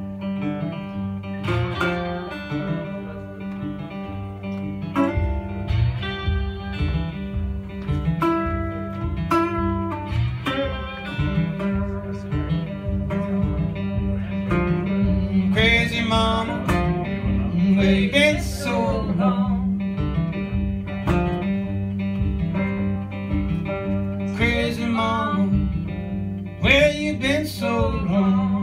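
Live instrumental blues intro on a metal-bodied resonator guitar and an acoustic guitar, plucked notes over a held low note, with gliding slide notes. A steady low beat comes in about five seconds in.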